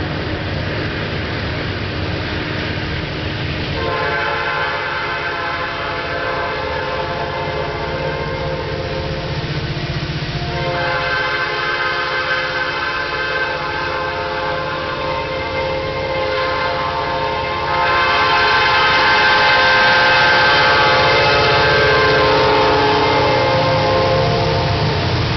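GE diesel locomotive at full power, sounding its air horn for a grade crossing: one long blast from about 4 s in, then a second, longer one from about 11 s that runs almost to the end, over the engine's low, steady rumble. The engine and horn grow louder about 18 s in as the locomotive reaches the crossing.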